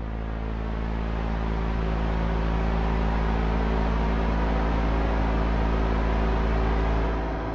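Ambient electronic music: a deep, sustained bass drone under many held tones and a swelling wash of noise, which drops back about seven seconds in.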